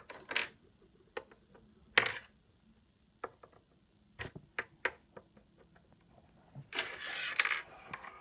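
Plastic Lego pieces being handled: scattered light clicks and taps, with a sharper knock about two seconds in and a short rustle near the end.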